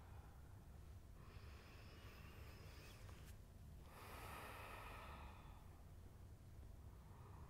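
Faint, slow breathing through the nose, picked up by a body-worn mic: two long breaths, one about a second in and another about four seconds in, over a low steady room hum.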